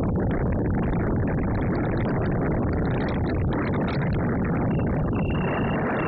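Strong wind buffeting the microphone: a steady, dense low rumble with no break. A thin steady high tone comes in near the end.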